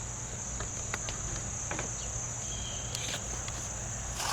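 Crickets chirping steadily in a continuous high-pitched trill, with a few faint clicks and taps scattered through it.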